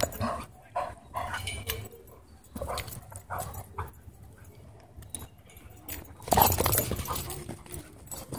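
Dogs play-wrestling, giving a string of short growls and yips, with the loudest burst about six seconds in.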